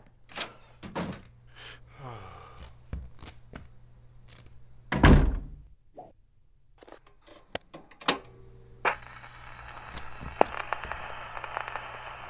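Footsteps and small handling knocks, then a loud thunk about five seconds in. From about nine seconds a steady hiss with fine crackling ticks sets in: a gramophone record's surface noise with the needle down, just before the music plays.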